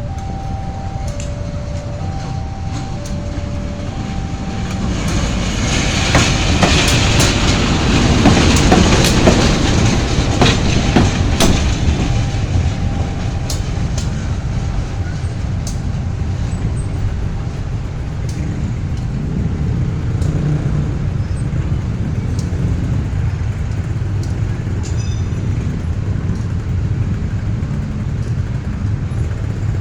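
CC 201 diesel-electric locomotive moving during shunting: a steady low engine rumble, growing louder between about six and twelve seconds in, with sharp wheel clacks over rail joints. An alternating two-note warning signal sounds until about five seconds in.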